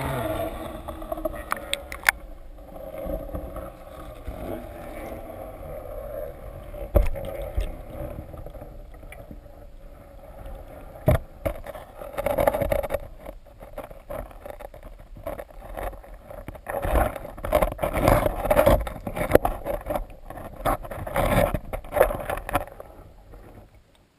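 Underwater sound of carp feeding: irregular clicks and knocks over a murmur of moving water. The sound comes in louder, busier stretches about halfway through and again in the last third.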